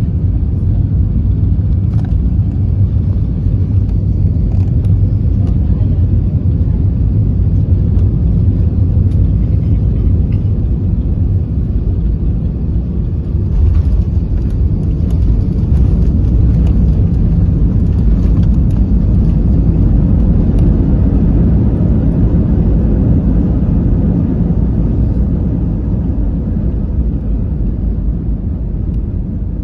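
Airbus A320 cabin noise: a heavy, steady low rumble of engines and airflow. About 13 seconds in it grows louder with added hiss for several seconds, then eases off near the end.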